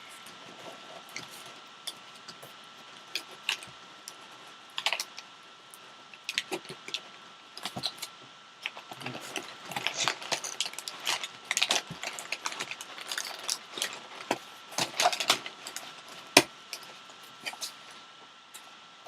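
Irregular clicks, crinkles and scrapes of a box and its packaging being handled and opened, busiest in the middle stretch, with one sharp knock near the end.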